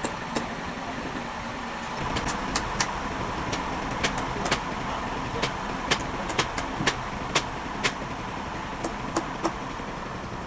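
A machine running steadily, with frequent sharp clicks and knocks from about two seconds in.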